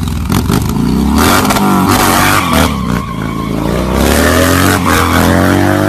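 Motorcycle engine revving, its pitch rising and falling several times.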